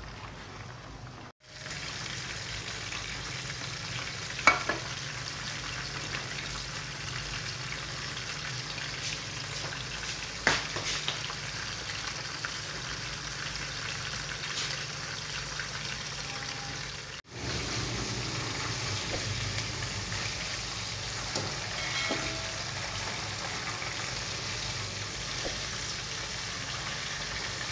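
Batter-coated chicken pieces deep-frying in hot oil in a wok: a steady bubbling sizzle. Two sharp clicks stand out, about four and a half and ten and a half seconds in.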